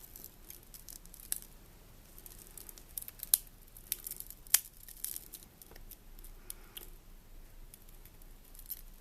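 Smashed digitizer glass of a Samsung Galaxy Ace S5830 being prised up from its adhesive with a pry tool: irregular sharp clicks, snaps and crackles of glass and glue letting go. The loudest two snaps come a little past three seconds in and about four and a half seconds in.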